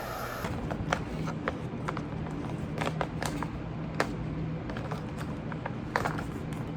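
Irregular light clicks and taps, as of small objects being handled, over a steady low hum.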